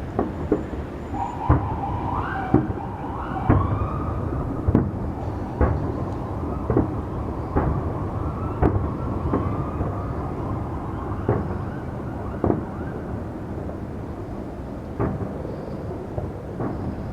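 New Year fireworks bursting overhead: sharp bangs about once a second over a steady low rumble. A wavering tone rises and falls through the first half.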